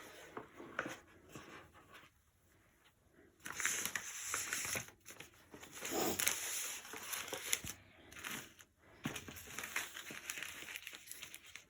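Packaging being handled and crinkled in irregular rustling bursts, loudest in two stretches a few seconds in and around the middle.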